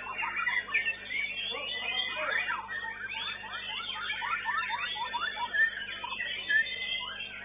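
White-rumped shama (murai batu) singing contest song: a fast, unbroken run of varied whistles and chattering notes that sweep up and down, with overlapping notes throughout.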